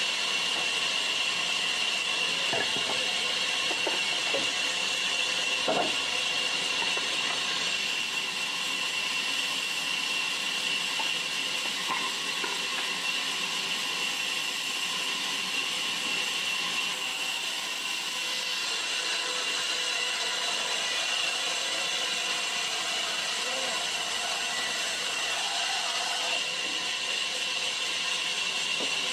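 Large band saw running and cutting through a block of timber: a steady high hiss with a high whine, and a few light knocks in the first few seconds.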